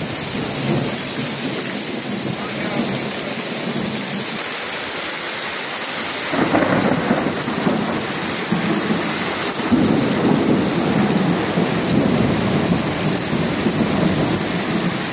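Heavy rain pouring steadily, with thunder rolling in twice: a long low rumble about six seconds in and another from about ten seconds in.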